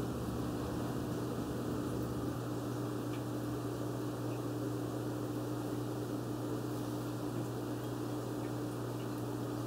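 Aquarium filter or pump running with a steady, unchanging hum and a wash of noise.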